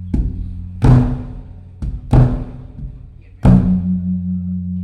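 Large Thai temple drum (klong laeng, the evening drum) struck with a stick in a slow pattern of light and heavy strokes, three heavy beats in all, each ringing on. The drumming signals the eve of a Buddhist holy day (wan kon / wan phra). A steady low drone hums underneath.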